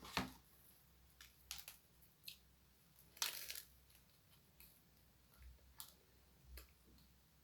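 Faint, scattered eating sounds from biting into and chewing a chocolate croissant, with soft rustles; the loudest, about three seconds in, lasts about half a second.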